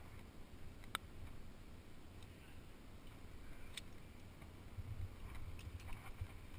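A few faint, sharp clicks and taps from climbing hardware and hands on the rock, over a low steady rumble.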